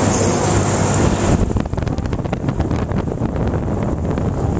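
Wind buffeting the microphone as the Mondial Turbine ride swings the rider through the air, over the rumble of the ride. About a second and a half in, the rushing hiss drops away and a rapid clatter of small clicks and rattles follows.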